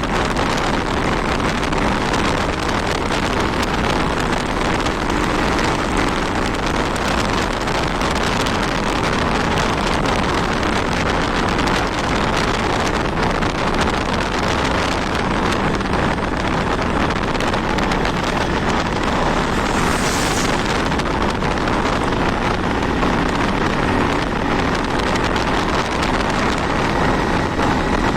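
Steady wind rushing over the microphone on a moving Honda 160 motorcycle, with the engine running underneath at an even speed. A short hiss comes about twenty seconds in.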